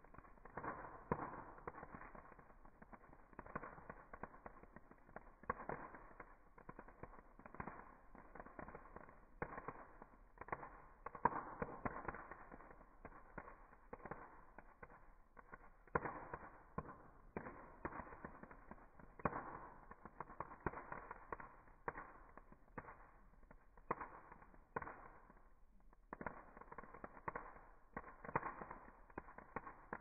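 Campfire burning in a metal fire basket, crackling with frequent irregular pops.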